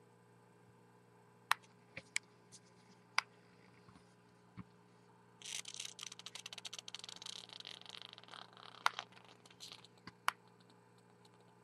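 Faint clicks, then, about halfway through, a few seconds of dense crackling from a Horizon Tech Krixus atomizer's bare ceramic heater being dry-burned at about 29 W. The crackling is the residue burning off the glowing ceramic.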